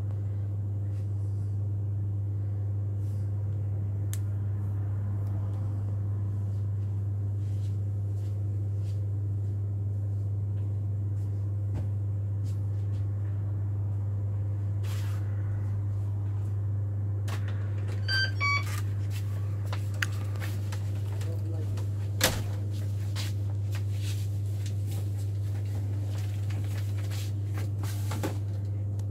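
A steady low hum with scattered small clicks and knocks of handling. Two short beeps come about 18 seconds in, and a single sharp click about 22 seconds in is the loudest sound.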